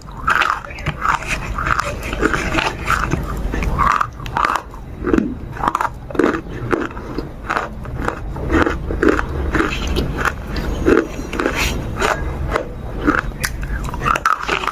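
An animal chewing and smacking at a sticky food, with wet, irregular bites and chews repeating several times a second.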